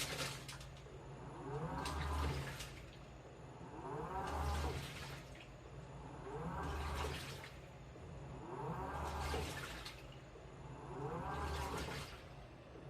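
Washing machine in its wash cycle: the motor turns the drum in spells about every two seconds, each with a motor whine that rises and falls in pitch and a low hum, while the water and laundry slosh inside.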